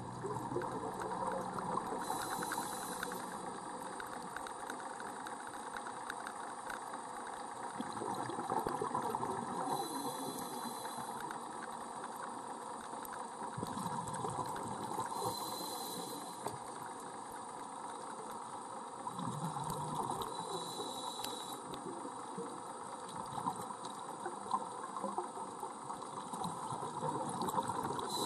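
Underwater sound recorded on a scuba diver's camera: a steady crackling hiss, with the diver's regulator breathing every five or six seconds, a short hiss on the breath in and a rush of exhaled bubbles.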